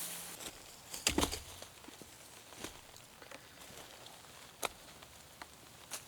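Light rain: a faint steady patter with scattered single drops tapping sharply close by. About a second in there is a louder knock with a brief rustle.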